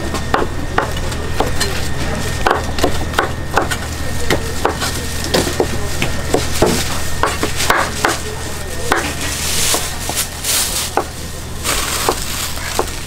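A large kitchen knife chopping boiled pork offal on a cutting board: irregular sharp knocks against the board, a few a second. About two-thirds of the way in, a plastic bag rustles loudly as the cut meat is packed.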